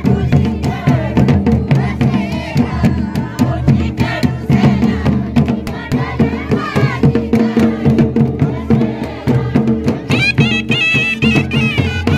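Himachali folk dance music for a nati: drums beating a steady rhythm over a held drone, with a high, wavering wind-instrument melody coming in about ten seconds in.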